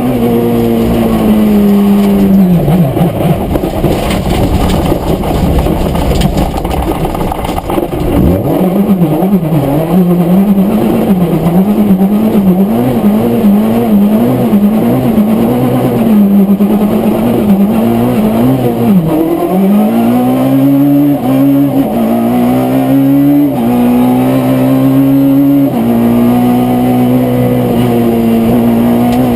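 Rally car engine at high revs, its pitch dropping, then rising and falling over and over for about ten seconds before climbing again and holding high revs.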